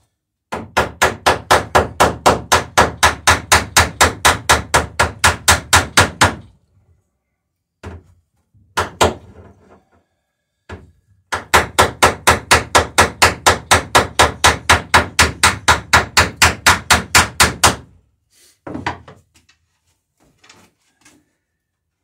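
Hammer rapidly tapping to peen over a boat rivet, about five blows a second, in two runs of about six seconds each. A few single blows fall between the runs and near the end.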